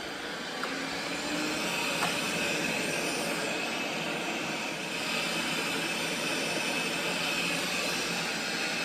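Proscenic M8 Pro robot vacuum starting its run, its suction motor spinning up over the first second and then running steadily with a high whine.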